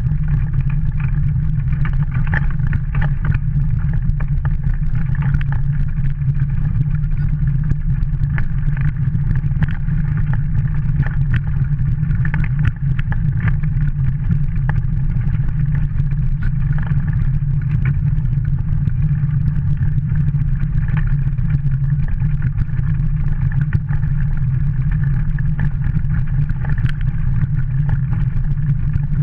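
A dog-drawn kart rolling fast along a dirt and snow trail: a steady low rumble from its wheels and frame, with many small crunches and rattles.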